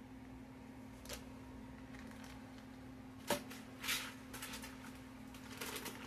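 Plastic bag of broccoli rustling and crinkling as it is handled, opened and tipped into a pressure cooker pot, with a sharp click a little over three seconds in and the crinkling growing near the end. A steady low hum runs underneath.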